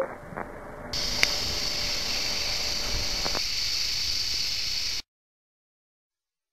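Steady static-like hiss that grows louder about a second in, with a couple of faint clicks. It cuts off abruptly about five seconds in, leaving dead silence.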